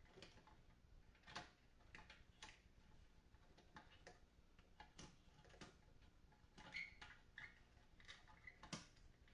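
Faint, irregular clicks and light knocks, about ten of them, from a guitar amplifier's circuit board and chassis parts being handled and fitted back together.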